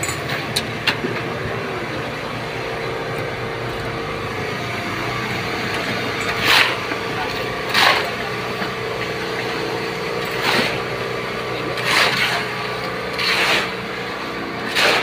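A small engine running steadily at a concrete pour, with short scraping swishes every one to three seconds in the second half.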